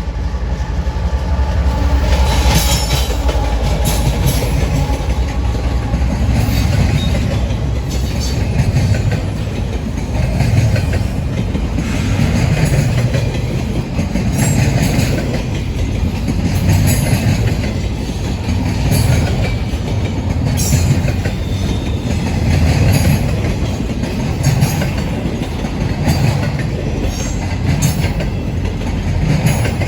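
Freight cars of an empty coal train rolling past, their wheels clacking over rail joints in a steady rhythm about every two seconds, with rattling and light metallic squeaks over a continuous rumble.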